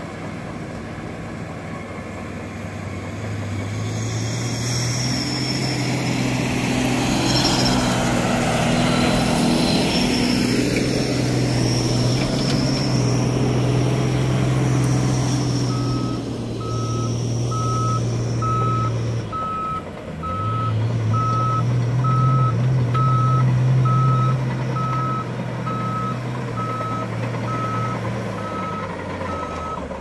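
Shantui SD16L crawler bulldozer's diesel engine working under load as the machine drives during a ground test after a transmission replacement. It grows louder a few seconds in and drops briefly about two-thirds of the way through. A reversing alarm beeps at an even pace from about halfway on.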